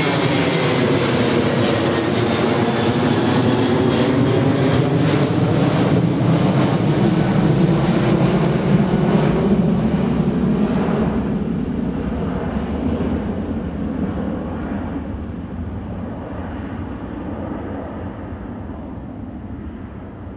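Airbus A380-841's four Rolls-Royce Trent 970 jet engines on short final and in the flare: a loud jet rumble with whining tones that slide down in pitch over the first few seconds. It is loudest about halfway through, then fades and grows duller as the aircraft nears touchdown.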